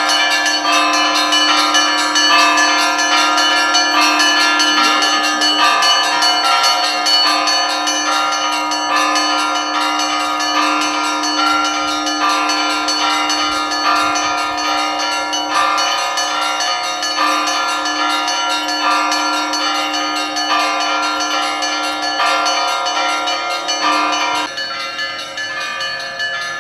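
Orthodox church bells ringing a festive peal: rapid, continuous strikes on the smaller bells over the sustained tone of a larger bell. The deep tone drops away about 24 seconds in while the small bells ring on.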